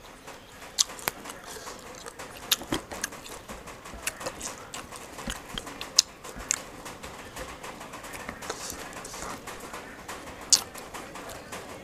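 Close-up chewing and crunching of raw sour fruit, with scattered sharp clicks, a few of them a metal spoon touching the ceramic dip bowl.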